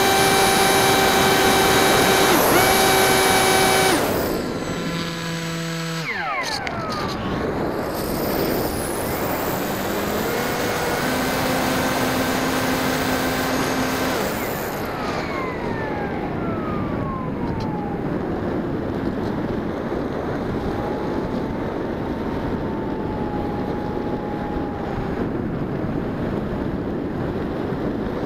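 Electric motor and pusher propeller of a Bixler 1.1 RC plane, picked up by the onboard camera: a steady whine at high throttle that steps down and falls away about four seconds in. It comes back lower for a few seconds midway, then cuts, leaving the rush of air as the plane glides.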